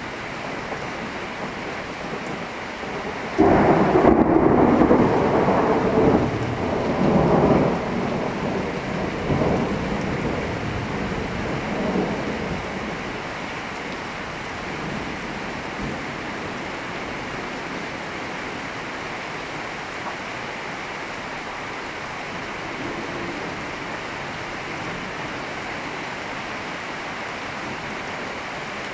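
Thunder over steady rain. A loud rumble starts suddenly about three and a half seconds after the lightning flash, rolls on in several swells for about eight seconds, then fades, leaving the rain. The delay puts the strike roughly a kilometre away.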